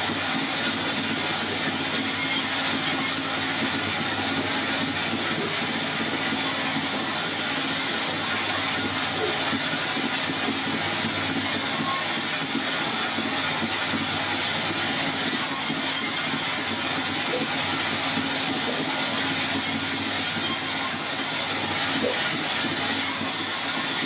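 Sawmill band saw running and cutting wood: a steady motor hum and blade noise, with a high hiss that comes and goes every few seconds.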